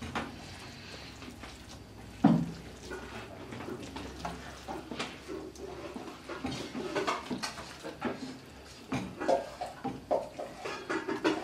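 Red plastic spatula stirring zucchini noodles in tomato sauce around an aluminium pan, with irregular scraping and clicks against the pan and one loud knock about two seconds in.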